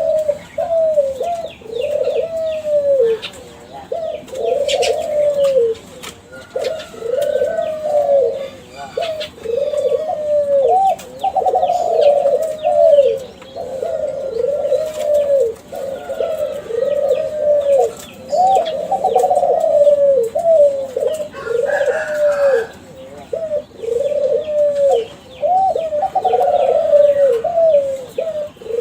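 Kelantan spotted dove (derkuku) cooing over and over, one low hooked coo phrase after another with short gaps. Faint chirps of small birds sound behind it.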